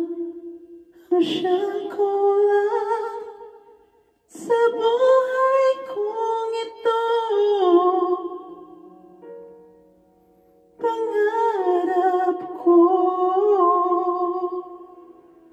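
A woman singing a slow song into a handheld microphone, in three long phrases with short breaks between them.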